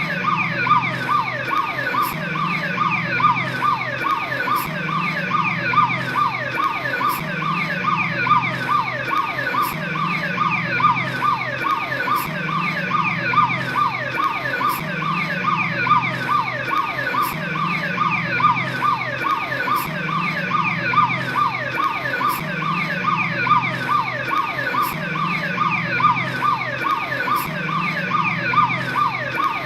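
Police patrol car siren sounding continuously in a fast yelp, its pitch sweeping rapidly and evenly several times a second.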